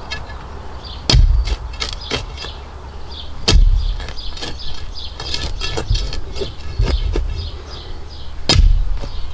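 Three heavy thuds, about a second in, midway and near the end, with lighter knocks and clicks between them.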